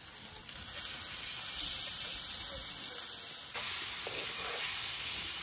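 Raw pork pieces sizzling as they are dropped into hot sautéed onion, ginger and green-chilli masala in a cooking pot: a steady hiss that starts about half a second in and dips briefly a little past the middle.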